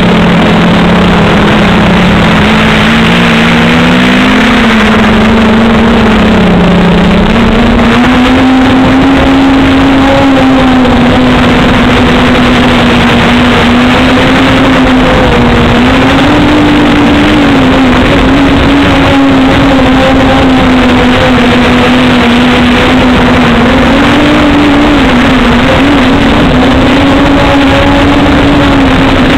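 Small fuel-burning engine of a radio-controlled model airplane running at high revs, heard close up from on board. Its pitch wavers with the throttle and climbs higher about eight seconds in.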